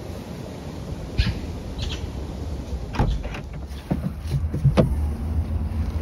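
A bag being loaded into a car's open boot: a few sharp knocks and thuds, the loudest about three and five seconds in, over a low steady rumble.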